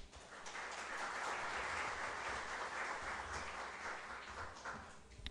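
A crowd applauding, the clapping dying away near the end.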